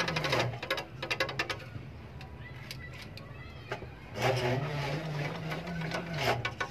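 An electric bicycle's hub motor, pedalled to work as a generator, drives a 220 V electric fan through a step-up transformer. It gives a low machine hum whose pitch drops about half a second in and rises again about four seconds in, following the pedalling speed. Bursts of rapid ticking come at the start and again from about four seconds in.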